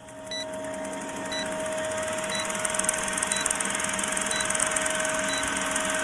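Vintage film-projector sound effect: a steady mechanical whirring clatter with film hiss and a hum, and a short high beep once a second in time with the leader countdown.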